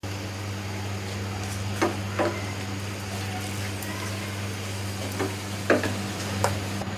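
Oil sizzling in a pan as a paratha fries, with five sharp knocks of a spatula against the pan over a steady low hum.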